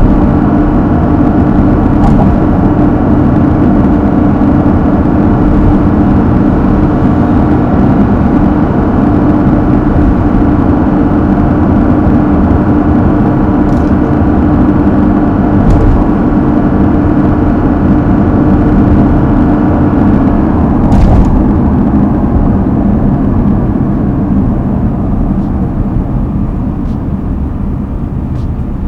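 Mazda CX-60's 3.3-litre inline-six diesel running steadily while the car is under way, its engine tone over road noise. About 20 seconds in the engine tone drops away, and the sound slowly eases off near the end as the car slows.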